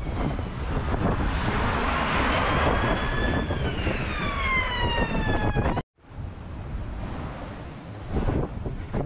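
An emergency vehicle's siren wailing, one slow rise and fall in pitch, over steady wind and street noise. The sound cuts off suddenly about six seconds in, and wind and street noise carry on more quietly.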